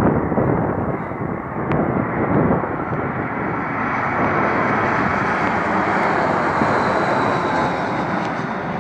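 Airbus A319 airliner on landing approach, its jet engines making a steady loud rush, with a faint high whine coming up about halfway through.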